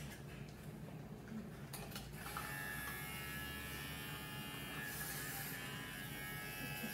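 Electric pet hair clippers buzzing steadily as they are worked over a small dog's coat; the buzz grows louder and brighter about two seconds in.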